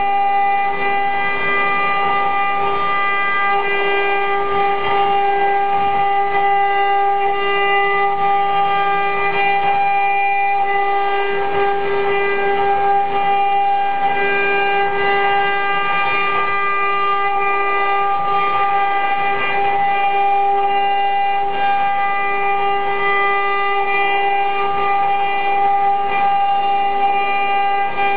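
Eight-head CNC router running: the spindles give a steady high whine over the noise of the bits carving a wooden panel.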